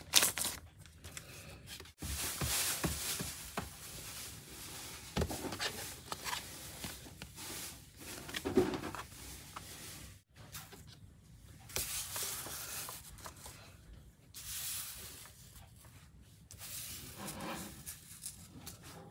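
Plastic wrapping on a pack of picture cards crinkling and tearing as it is opened, with scattered light taps as the cards are handled and set down on a hard table.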